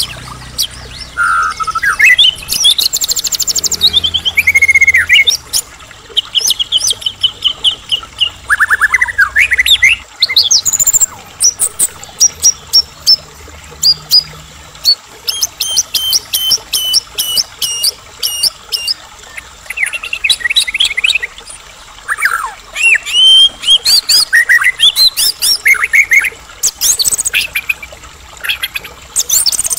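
White-rumped shama (murai batu) singing nonstop: a long, varied song of loud clear whistles, rising and falling slurs and fast runs of repeated notes, with sharp clicking notes mixed in near the start and near the end.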